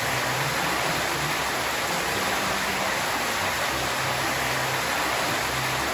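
Hot spring water gushing from a wooden spout into a hinoki-wood bathtub, a steady splashing rush as the tub is being filled.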